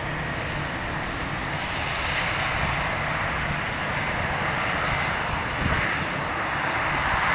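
Airliner engines running at an airport, a steady dense roar that grows slightly louder near the end.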